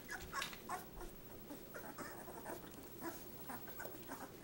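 Labrador retriever puppies squeaking and whimpering faintly, many short high squeaks overlapping, as they crawl over one another jostling to nurse.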